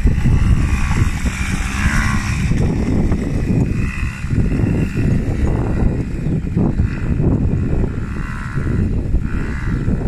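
ATV engine running, with a loud, uneven low rumble.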